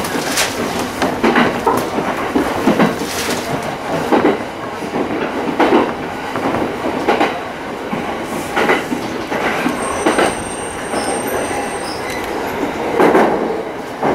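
JR East E231-series electric commuter train heard from inside its front car, its wheels clacking irregularly over rail joints and points as it runs into the station. A faint high whistle joins briefly about ten seconds in.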